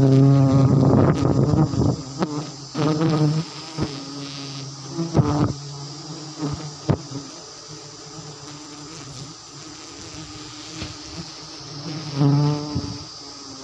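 A swarm of giant honeybees buzzing around their disturbed nest, a loud droning hum that wavers in pitch and swells and fades, loudest at the start and again near the end. Several sharp knocks sound in between.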